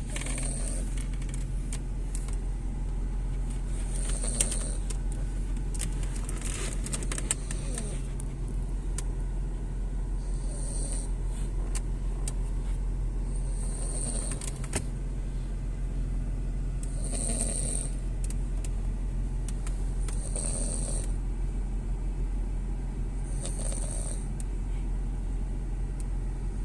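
French bulldog snoring in its sleep, a snore about every three seconds, which the owner likens to a broken tractor. Underneath is the steady drone of the car heard inside the cabin.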